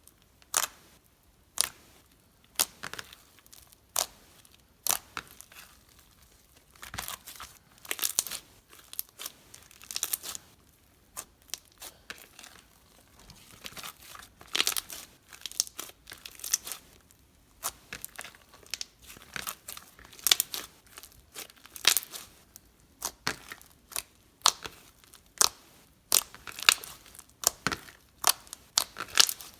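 Hands squishing and stretching a crunchy slime made with tacky glue, giving frequent sharp pops and crackles at irregular intervals, some in quick clusters.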